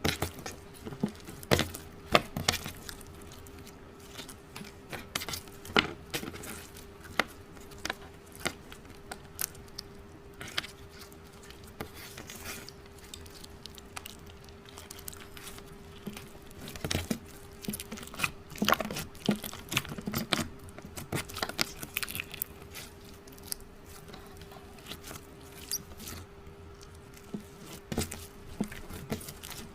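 Slime being squished and worked by hand, giving irregular sticky clicks and pops, some in quick clusters, over a faint steady hum.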